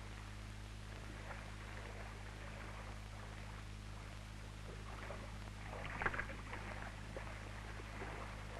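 Faint sloshing of dip wash in a sheep-dip bath as it is stirred with a long-handled stirrer, a little louder about six seconds in, over a steady low hum.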